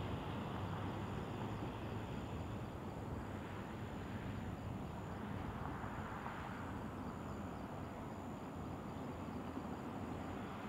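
Steady low rumble of outdoor machinery with wind noise, and a faint steady high-pitched whine above it.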